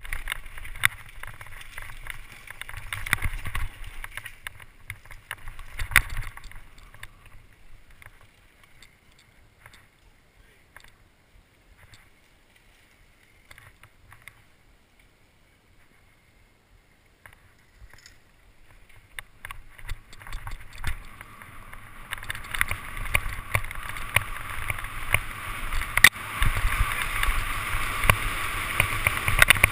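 Mountain bike ridden fast down a rocky, rutted dirt trail, heard from a helmet camera: tyres on dirt and stones, the bike rattling and knocking over bumps, and wind rushing over the microphone. It goes much quieter for several seconds in the middle, then grows loud and busy again from a little past the two-thirds mark.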